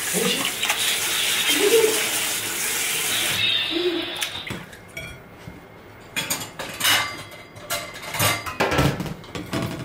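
Cold tap water running into a stainless steel pot while cooked noodles are rinsed by hand in it, splashing. The water stops about four and a half seconds in, followed by several clatters and knocks of the metal mesh strainer and a bamboo basket against pot and plate.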